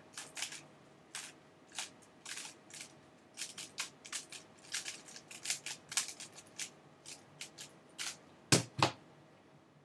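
Dayan Lunhui 3x3 puzzle cube being turned by hand: quick plastic clicks and short rasps of layers turning, in irregular bursts, with two louder knocks close together near the end.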